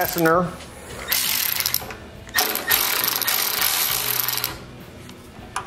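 Socket ratchet clicking in two runs, a short one about a second in and a longer one of about two seconds: loosening the quarter-inch-headed clamp fastener that holds the choke cable on a Kohler Magnum 20 carburetor.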